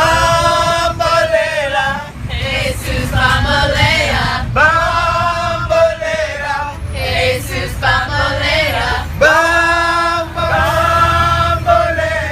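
A group of men and women singing together in unison, unaccompanied, with long held notes. A bus engine rumbles steadily underneath.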